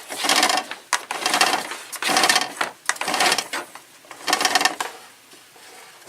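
Retractable cord reel of an Electrolux Epic 8000 vacuum cleaner clattering as the cord is pulled out in a series of tugs: about five bursts of rapid ticking, roughly one a second, stopping about five seconds in.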